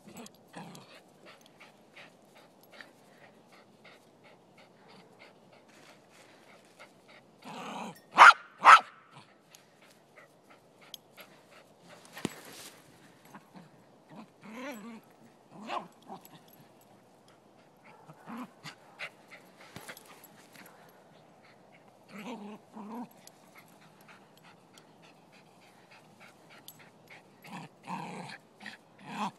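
Silky terrier barking twice loudly about eight seconds in, with quieter barks and growls now and then.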